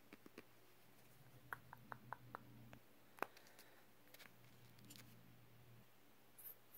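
Quiet handling of a plastic hand-lotion tube: a quick run of five small clicks, then one sharper click as the tube's flip-top cap snaps open.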